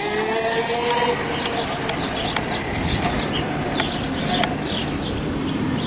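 Kunray 3000-watt 72-volt brushless motor of an electric go-kart whining as the kart accelerates, its pitch rising and levelling off, then fading about a second in as the kart moves away, leaving tyre noise on pavement with scattered light ticks.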